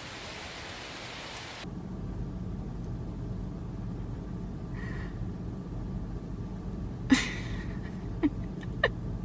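Steady hiss of rain falling for the first couple of seconds, then a car cabin's low, steady rumble from a car that is running. A few short sharp clicks come in the last few seconds, the first of them the loudest.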